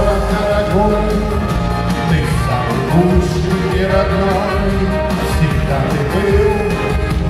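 Live band playing a Russian chanson song: a male lead voice sings over electric guitars, bass and drums, steady and full throughout.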